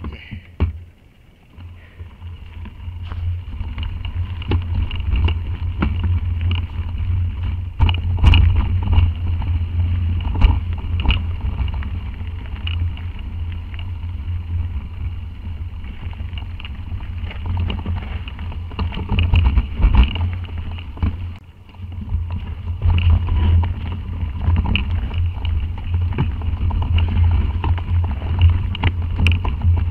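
Mountain bike descending a rough dirt trail: steady wind rumble on the action camera's microphone, with frequent knocks and rattles from the bike jolting over the ground. It is quieter for the first couple of seconds and briefly about twenty-one seconds in.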